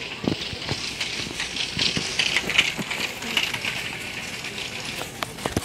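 Handling noise: fabric rustling and scraping against the recording device's microphone, with scattered small knocks and clicks.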